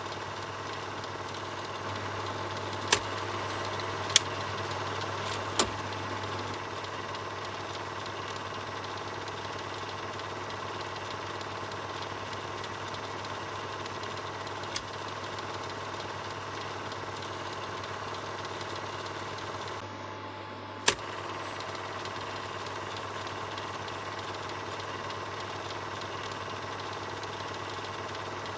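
Film projector running with a steady mechanical whir and hum, broken by a few sharp clicks.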